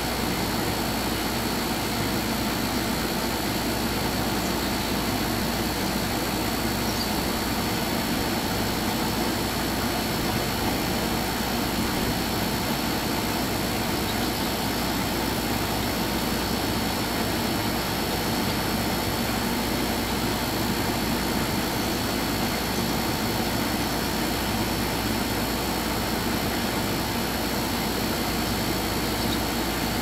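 Steady mechanical drone with a constant high whine, unchanging throughout.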